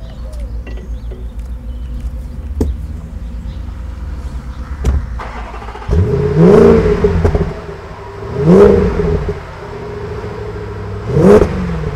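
Land Rover Defender's 5.0-litre V8 engine idling with a low rumble and a few clicks, then revved hard three times about halfway through and near the end, each rev rising and falling back to idle.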